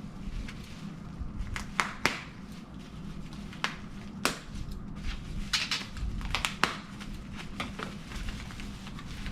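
Plastic packaging around a graded comic book slab being handled and pulled open: crinkling with a scatter of sharp clicks and snaps.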